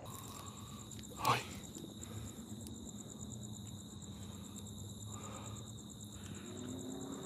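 Crickets trilling steadily in the night, a faint high continuous trill. One short, louder swish about a second in.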